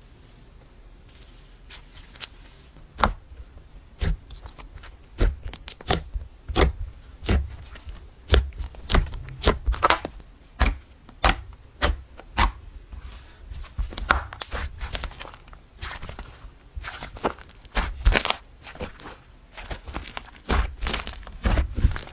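Hands pressing and kneading slime, with many sharp, irregular clicks and pops starting about two seconds in.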